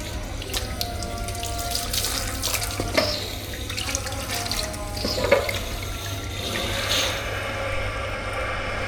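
Tap water running into a sink, with a few sharp knocks and clinks, the clearest about three seconds in and again after five seconds.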